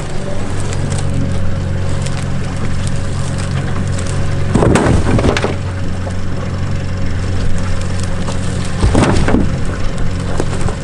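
Boat motor idling steadily with a low hum, with two louder noisy surges, one about halfway through and one near the end.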